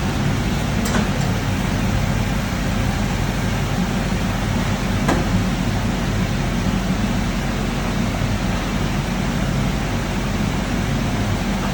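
Steady mechanical hum and hiss of a double column CNC machining center running under power, with faint clicks about a second in and about five seconds in.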